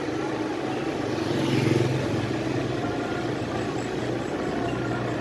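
A vehicle's engine running steadily with road noise while travelling, growing louder for a moment about a second and a half in.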